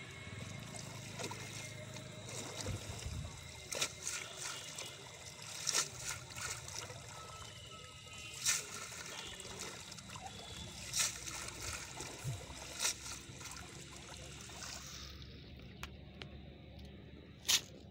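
Shallow pond water trickling and splashing as a cast net is worked by hand and drawn up out of it, with several short sharp splashes and knocks; the water sound thins near the end.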